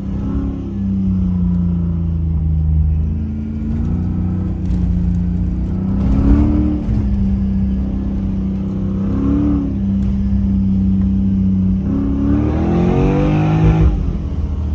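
Off-road vehicle engine running steadily and revving up three times: two short revs, then a longer climbing rev near the end that falls away again.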